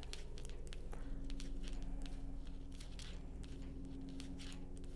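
Metal knitting needle tips clicking irregularly and yarn rustling as stitches are worked, faint, over a low steady hum.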